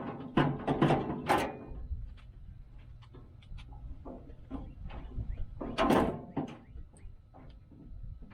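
Metal clanks and rattles of a steel four-drawer tool cart being handled and lifted: a burst of knocks about a second in, scattered lighter clicks, and another loud cluster of knocks about 6 seconds in.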